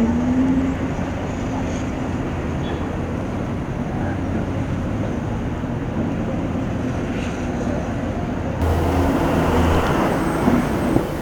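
Steady outdoor traffic-like ambience, a constant rumble and hiss with faint voices at times. The sound changes abruptly about eight and a half seconds in and is a little louder afterwards.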